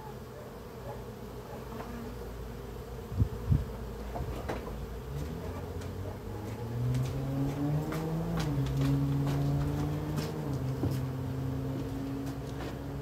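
Honeybees buzzing in the air around open wooden hives, with two sharp knocks about three seconds in. A low steady hum rises and holds from about halfway through.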